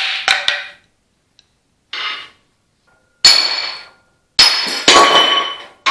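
Hammer blows on an Allis-Chalmers WD45 tractor's steel front axle, driving out a steering spindle. About seven sharp metallic strikes at uneven spacing, several ringing on briefly, the loudest in the second half.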